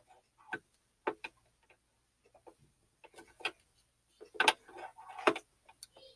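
Irregular light clicks and knocks of a screwdriver being reached into a Brother CS-6000i sewing machine, tapping against its parts, with the loudest cluster of knocks about four to five seconds in.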